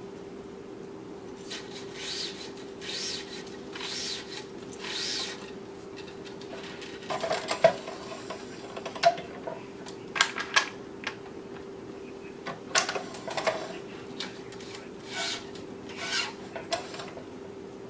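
Tennis string being pulled and rubbed through the crossing strings while weaving cross strings on a racquet stringing machine: a few quick swishing strokes, then scattered sharp clicks and short rattles as the string is handled at the machine's tension head and clamps. A steady hum runs underneath.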